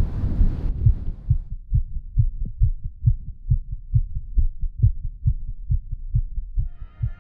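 Fast heartbeat sound effect: low, quick, evenly spaced thumps. Wind noise fades out about a second in, and music starts near the end.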